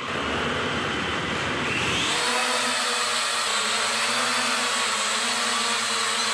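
E88 mini quadcopter's four small motors and propellers whirring: they spin up on the floor, rise in pitch about two seconds in as the drone lifts off, then hold a steady high whine in flight. The motors run normally after the drone was flown in the rain.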